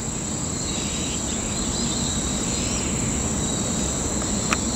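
Steady high-pitched chirring of an insect chorus, continuous throughout, over a low outdoor hiss. A single short click sounds near the end.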